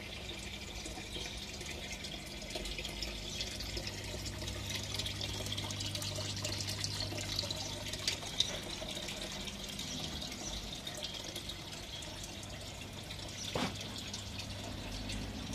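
Water trickling and dripping through a recirculating hydroponic system of PVC growing pipes, a steady splashing hiss over a low steady hum.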